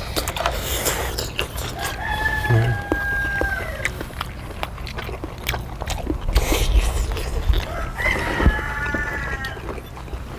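A rooster crowing twice in the background, once about two seconds in and again near the end, each crow held for a second or two. Close up, the clicks and smacks of people eating: chewing meat off beef rib bones and handling chopsticks and bowls.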